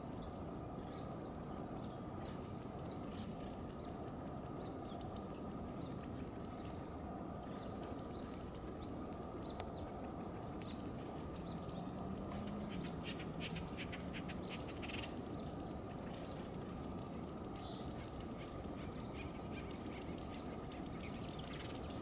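Small birds chirping in a forest: short high calls repeating about once a second, a denser run of calls about halfway through, and a brief busier burst near the end, over a steady low background rumble.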